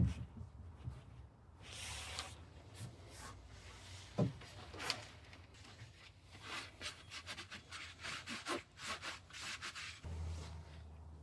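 Sand-casting mold being worked by hand: irregular scraping and rubbing strokes, one sharp knock about four seconds in, and a quick run of short scrapes in the second half.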